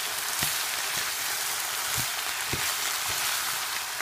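Rice and peas frying in oil in a hot wok, a steady sizzle, while they are stirred with a metal spoon. There are a few low knocks as the stirring strikes the pan.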